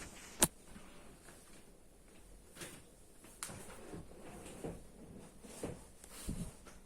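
A sharp click about half a second in, then a scattering of softer knocks and clicks at uneven intervals, as of small hard objects being handled.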